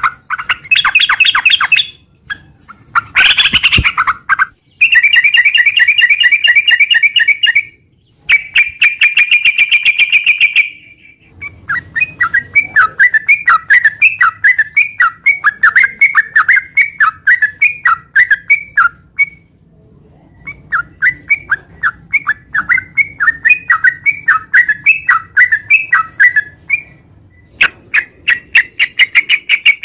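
Yellow-vented bulbul (trucukan) singing a long rolling song. It opens with bursts of fast trills, each a second or two long, and from about a third of the way in runs on in long strings of quick chattering notes, several a second, before a last trill near the end.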